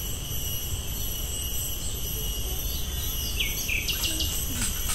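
Steady high-pitched insect chorus in several pitches, with a few short falling bird chirps about three seconds in and a low rumble underneath.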